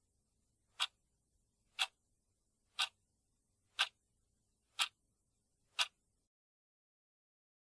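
Countdown clock ticking: a short sharp tick once a second, six times, stopping as the count reaches zero.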